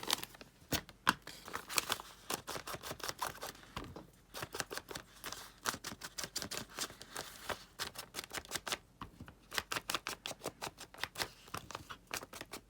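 A foam ink dauber dabbed over and over against paper and an ink pad, inking the edges and folds of a paper envelope: quick, irregular dry taps, several a second, with a couple of short pauses.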